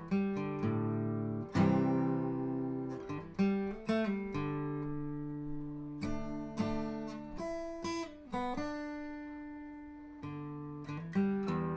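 Background music: acoustic guitar, picked notes and chords that ring and fade, with a couple of notes sliding in pitch.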